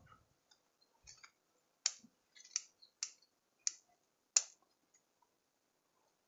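Bonsai scissors snipping thin twigs off an anting putri (water jasmine) bonsai: about six sharp snips, one every half-second or so.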